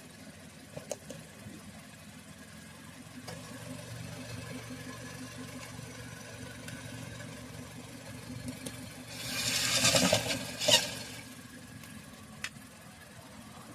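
A car engine idling steadily in the background, with a few light clicks as a plastic engine undercover is handled, then a burst of scraping noise and a sharp knock near the end as the panel is pushed into place.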